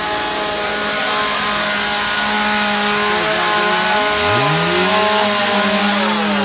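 Several chainsaws running at once at different speeds; about four seconds in one of them revs up from idle and holds at high speed.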